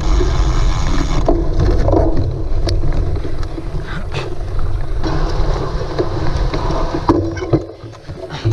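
Cyclocross bike ridden over rough ground: heavy wind rumble on the microphone with scattered rattles and knocks, easing briefly near the end.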